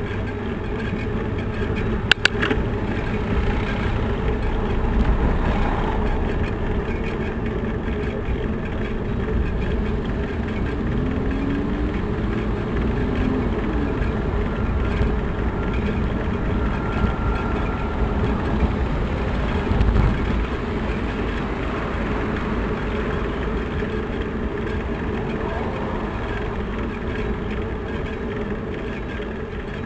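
Steady road and traffic rumble heard from a moving bicycle in city traffic, with a sharp double click about two seconds in and a low thump near the middle.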